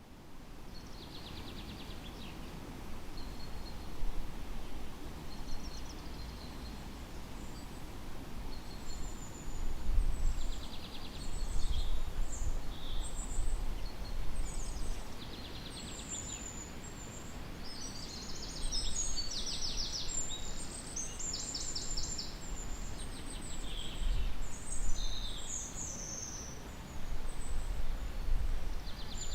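Forest ambience: several birds calling and trilling, short high calls scattered throughout and busiest in the middle, over a steady low rumble.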